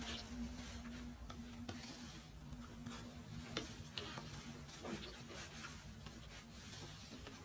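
Faint scattered clicks and light rubbing from small things being handled, over a low steady hum that fades out in the first few seconds.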